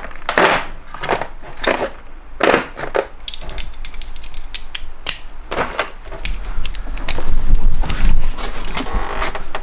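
Metal sockets and a ratchet handled in a plastic socket-set case: a string of clacks and knocks, with a run of quick fine clicks about halfway through. A louder low rumble with knocks follows in the last few seconds.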